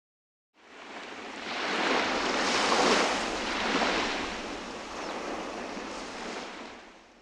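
A rushing, surf-like noise that swells over the first couple of seconds and then slowly fades away.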